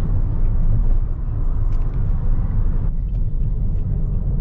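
Car road noise heard from inside the cabin: a steady low rumble with tyre hiss, the hiss thinning out about three seconds in.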